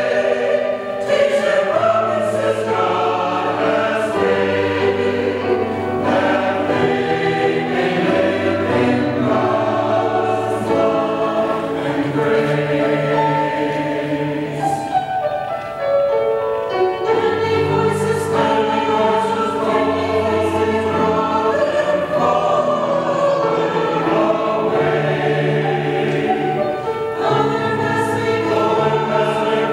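Mixed church choir of men's and women's voices singing an anthem in parts, with piano accompaniment, the voices holding long notes.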